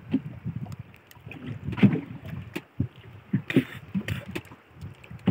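Small waves lapping and slapping irregularly against the hull of a small wooden boat, with a few light knocks and clicks; the loudest slap comes about two seconds in.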